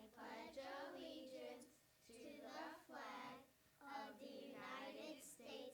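Children reciting the opening lines of the Pledge of Allegiance in phrases, with short pauses between them, faint and high-pitched.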